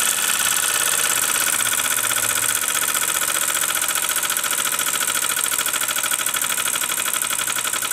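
Mamod SP6 single-cylinder model steam engine running at a rapid, steady beat.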